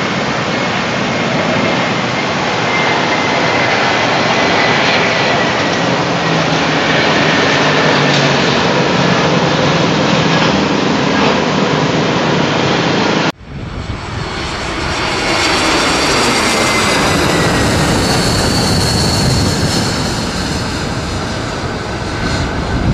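Twin-jet airliner passing low, its engines a loud steady rush with a slowly falling whine. About halfway through the sound cuts off abruptly and resumes with another pass of the same kind.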